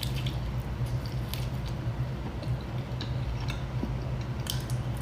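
A person chewing garlic-buttered food close to the microphone, with soft wet clicks and crackles scattered throughout, over a steady low hum.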